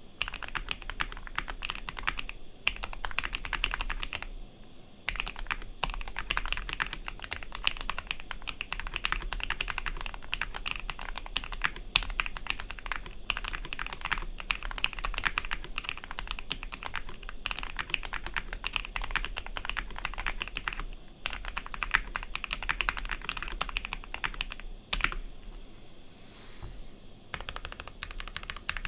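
Ikki68 Aurora mechanical keyboard with Gateron CJ linear switches being typed on quickly and continuously, a dense run of key clacks broken by a few short pauses.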